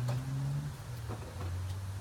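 Low, steady machine hum that drops slightly in pitch about two-thirds of a second in, with a few light clicks and taps.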